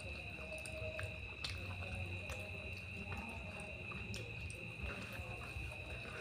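Close-up eating sounds: soft wet clicks and squishes of fingers mixing rice and curry on a plate, with chewing. A steady high-pitched whine and a low hum sit underneath.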